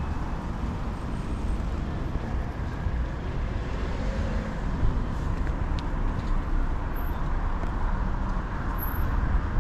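Steady street traffic noise: cars running along the road.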